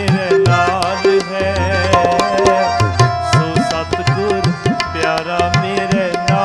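Tabla playing a busy rhythmic accompaniment, the bass drum's pitch sliding upward on several strokes, under a sustained, wavering melody line in an instrumental passage of Sikh Gurbani kirtan.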